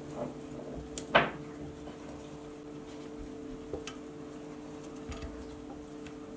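Hands handling nylon paracord on a plastic collar jig: soft rubbing and a few small clicks as the cow's hitches are loosened, with one louder short scrape about a second in. A steady low hum runs underneath.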